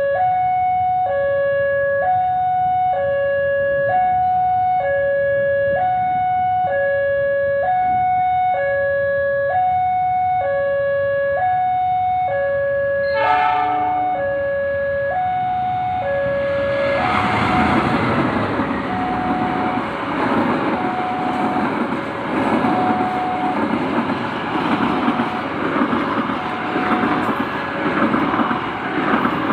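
Indonesian railway level-crossing warning alarm sounding a two-tone hoot, alternating between a lower and a higher pitch about every half second. A short horn blast sounds once about 13 seconds in. From about 17 seconds a train passes over the crossing, its wheels clattering rhythmically over the alarm.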